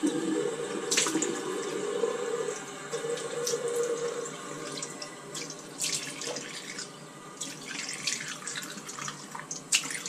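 Tap water running into a sink, with irregular splashes as the face is rinsed by hand.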